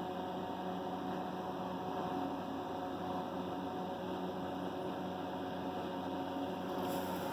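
Steady electrical hum over a hiss of background noise, unchanging throughout.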